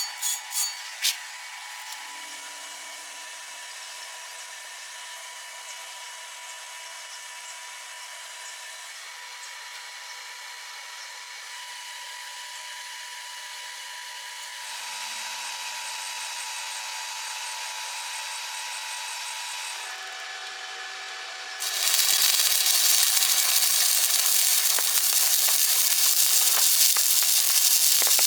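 A few sharp clicks at the start, then the steady whine of a machine running, a little louder from about halfway. About two-thirds of the way through, an electric welding arc strikes and crackles loudly with a frying sizzle, and keeps on.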